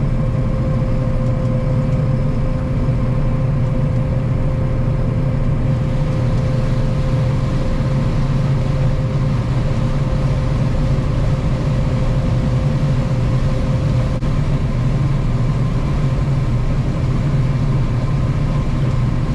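Combine harvester running steadily while harvesting corn: a continuous low engine and machinery drone, with a steady whine over it that fades out about two-thirds of the way through.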